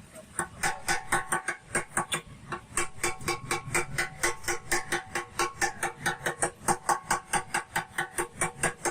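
Rapid, evenly paced light hammer taps on a motorcycle's sheet-steel fuel tank, about five a second, each with a short metallic ring. The mechanic is planishing out the last of a dent.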